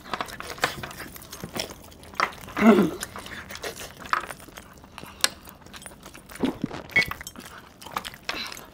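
Close-up eating: chewing, lip-smacking and tearing of whole chicken by hand, heard as scattered small clicks and wet smacks, with light clinks of metal chains and rings. A short murmur of voice about three seconds in.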